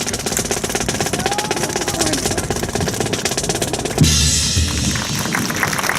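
Snare drum roll, fast and continuous, broken about four seconds in by a low thump.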